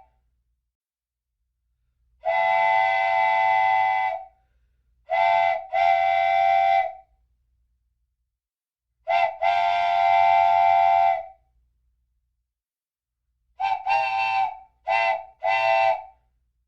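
Train horn sounding in separate blasts: one long blast of about two seconds, then a short and a long blast, then another short-long pair, and near the end four short blasts in quick succession. The blasts start and stop abruptly with dead silence between them, as if edited together.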